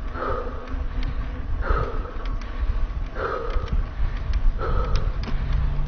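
A mountain biker breathing hard into the helmet microphone, one breath about every second and a half, over low wind and trail rumble with scattered sharp clicks from the bike. Near the end a steady low engine hum comes in.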